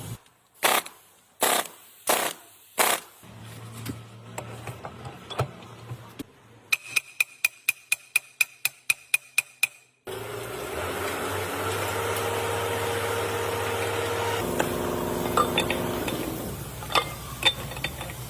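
Workshop repair sounds: four loud metal strikes, then a run of rapid, evenly spaced ticks over a steady high tone, then a machine running steadily for several seconds.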